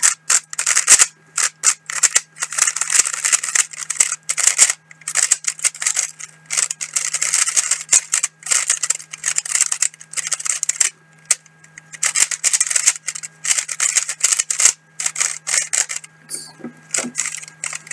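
Plastic 3x3 speedcube turned rapidly by hand: dense runs of clicking, clacking layer turns with short pauses between them, the cube freshly pre-lubricated. A steady low electrical hum runs underneath.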